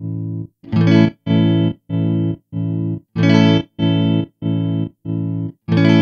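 Electric guitar chords through a Strymon Flint pedal's tremolo in '65 photo mode, intensity full up: the sound is chopped into hard, abrupt on-off pulses, somewhat under two a second. Fresh strums come about every two and a half seconds, three times.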